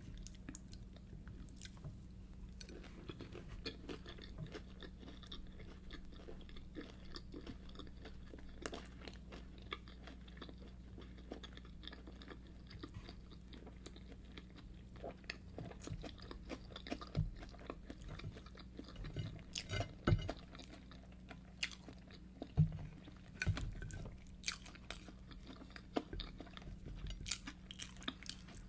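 A person chewing fried yam and egg sauce close to the microphone: irregular soft crunches and mouth clicks, a few louder bites in the second half, over a faint steady low hum.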